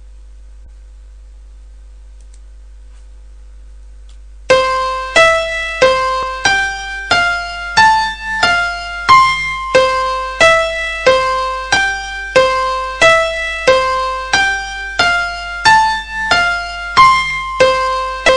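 Sampled piano from Reason's NN-XT software sampler playing a simple sequenced line of single notes, one at a time, about one and a half a second, each fading after it is struck. The notes start about four and a half seconds in, after a faint steady hum.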